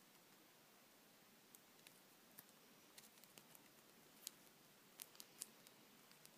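Near silence: faint room tone with a scattering of small, sharp clicks and ticks, a few slightly louder ones about four and five seconds in.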